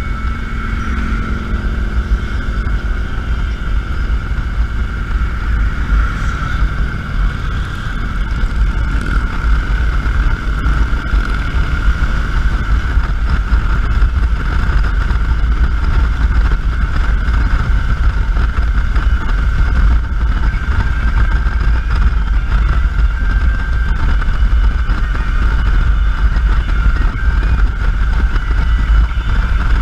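Motorcycle cruising at a steady speed: heavy wind rumble on the microphone over the engine's steady running, with a steady high hum.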